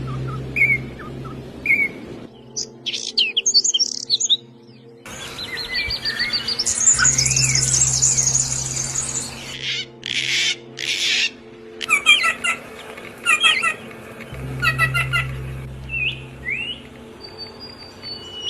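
Songbirds chirping and calling in a run of short spliced recordings that change abruptly: short chirps, then a fast high trill, then repeated groups of three to four chirps, and a rising whistle near the end. A low steady drone runs underneath.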